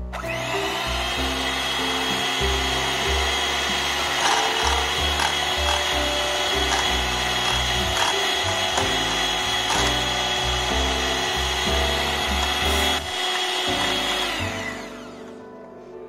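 Electric hand mixer with twin wire beaters running at steady speed, whisking egg whites and sugar in a glass bowl, its motor giving a steady high whine, with a few light clicks as the beaters touch the glass. The motor is switched off near the end and winds down over about a second.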